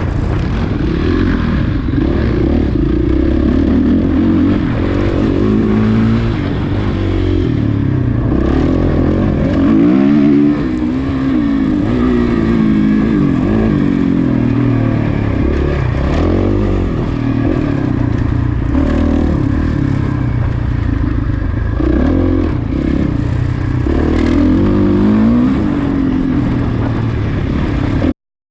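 Off-road motorcycle engine revving up and down over and over as the bike is ridden hard on a race course, with clattering over rough ground. The sound cuts off suddenly near the end, a recording dropout.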